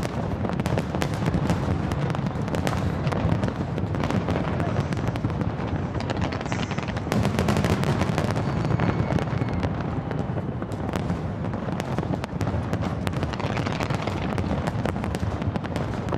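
Large fireworks display: a dense, unbroken barrage of aerial shell bursts and rapid crackling over a constant low rumble.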